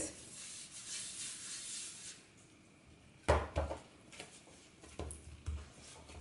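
A palm rubbing oil over a wooden cutting board, a soft swishing for about two seconds. Then a ball of firm whole-wheat dough is kneaded on the board, with dull knocks at irregular intervals as it is pressed and pushed.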